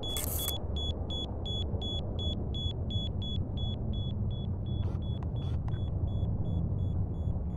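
Rapid electronic beeping, about four to five short high beeps a second and fading as it goes, over a steady low rumble, with a brief whoosh at the start and two more about five seconds in.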